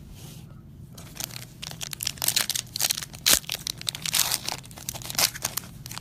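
Plastic trading-card wrapping being torn and crinkled by hand: a quick run of sharp crackles that starts about a second in and thins out near the end.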